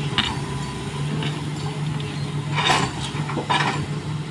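Excavator's diesel engine running steadily, with two short noises about a second apart near the end.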